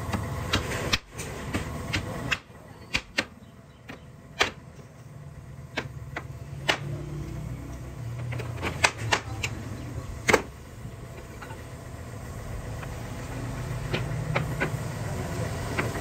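Hammer driving nails into a softwood frame: sharp, irregular strikes, some in quick groups, over a steady low hum.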